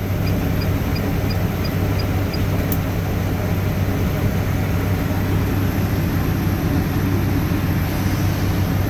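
Vehicle engine and road noise heard from inside the cab while driving at a steady speed: an even low hum. A faint regular ticking, about three a second, stops a couple of seconds in.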